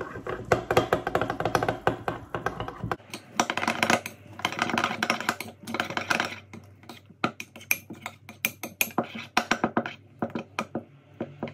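A spoon stirring a thick mixture of yogurt, quark and oats in a bowl, clicking and scraping rapidly against the bowl in quick runs with short pauses.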